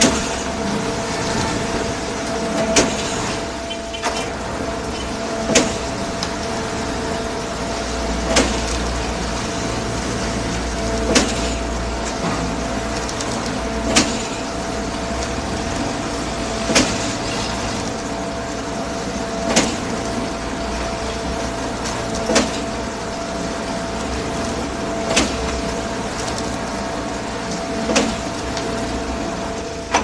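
Concrete mixer pump running steadily, with a constant pitched hum. A sharp clunk comes about every three seconds, evenly timed, as the pump's pistons change stroke.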